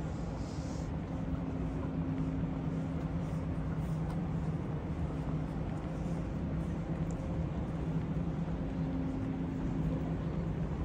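A steady low mechanical hum holding one pitch, over a continuous low rumble of town background noise.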